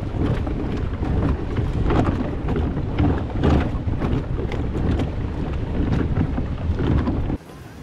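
Strong wind buffeting the microphone: a loud, low, gusty rumble that cuts off abruptly near the end.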